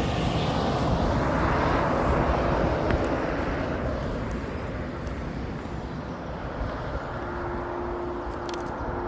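Traffic on a busy road: a vehicle passes close in the first few seconds, its tyre and engine noise fading away, and a steady hum comes in near the end.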